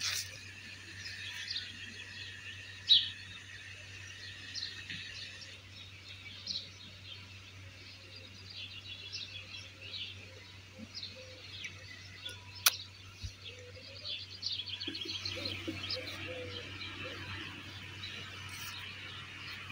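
Small songbirds chirping and twittering: many short, high chirps with a quick trill about three-quarters of the way through. A sharp click comes about two-thirds of the way in, over a low steady hum.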